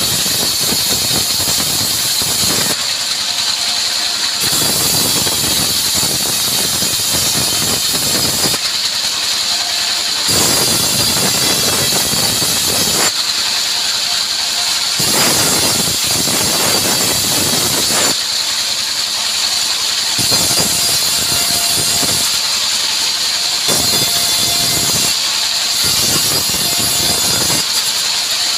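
Engine-driven vertical band sawmill running with a steady high whine as its blade rips a mahogany log lengthwise into boards. The louder, rougher cutting noise breaks off for a second or two about six times, between passes.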